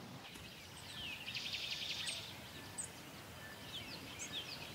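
Faint outdoor ambience of wild birds calling: a rapid high trill between about one and two seconds in, then a run of short falling chirps near the end.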